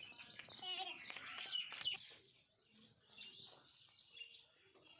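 A flock of small birds chirping and twittering together, many overlapping quick calls. The chorus is busiest in the first two seconds, then thins to scattered chirps.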